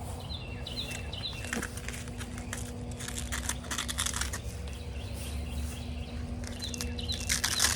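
Hook-and-loop (Velcro) straps on horse fly boots being pulled open and pressed shut around a horse's legs, heard as a few short rasping rips. A steady low hum runs underneath, and faint high chirps come early and again near the end.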